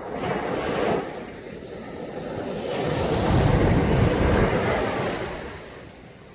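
Caribbean sea waves breaking and washing up on a sandy beach: a short swell at the start, then a larger wave that builds, peaks in the middle and fades away near the end.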